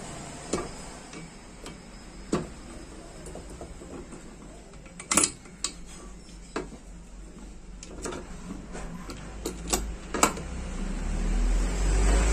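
Metal parts clicking and knocking as a motorcycle engine's gearbox input and output shafts, with their pinions, are eased together into the crankcase: a dozen or so sharp taps at uneven gaps, the loudest about five seconds in and a cluster around eight to ten seconds, with a low rumble building near the end.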